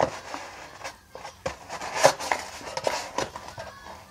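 Craft knife cutting part-way into a white backing board, heard as irregular scratches and small knocks, the loudest scrape about two seconds in.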